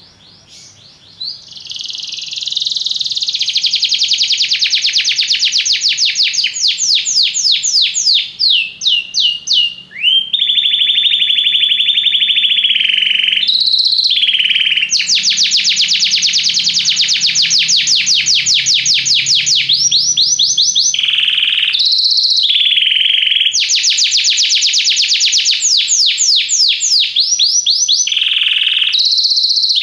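Domestic canary singing a long song of rapid trills, each a run of quick repeated notes, switching to a new trill every few seconds with brief pauses between phrases; the song starts about a second in.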